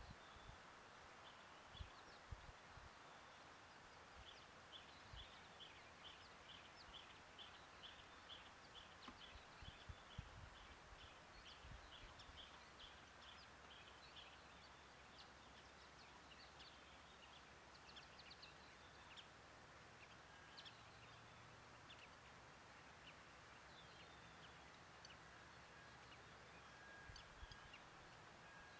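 Very quiet bush ambience: a bird calling in an even series of high notes, about three a second, for several seconds, then scattered chirps from other birds, with a few low thumps near the start.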